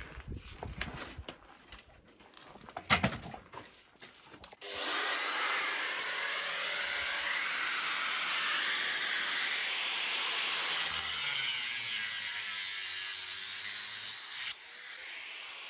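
A few knocks and handling clatter, then an angle grinder starts suddenly about four and a half seconds in and grinds steadily against a concrete block wall. It eases briefly near the end, then bites in again.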